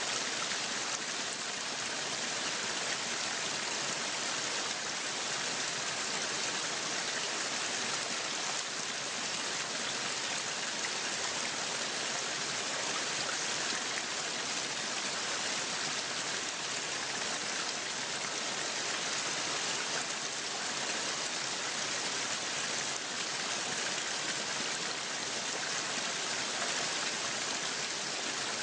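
Waterfall: a steady, unchanging rush of falling water. It sounds bright, with little low rumble.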